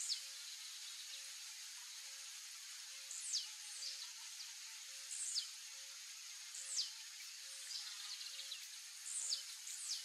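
Male blue-black grassquit (tiziu) singing its short, sharp song: a quick high note dropping into a fast falling 'tee-zeew'. The song repeats about six times, every one to two seconds, over a steady high hiss.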